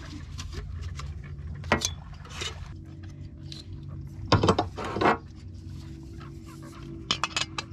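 Camp cookware and mugs clinking and clattering as hot cocoa is made: a few sharp clanks, with the loudest cluster about halfway through and another near the end, over a steady low hum.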